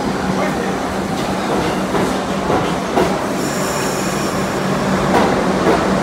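NYC Subway 1 train (R62A cars) running through the tunnel, heard from inside the car: a steady rumble and hum of wheels and motors, with a few rail-joint clacks. A high-pitched wheel squeal comes in a little past halfway and lasts about a second and a half.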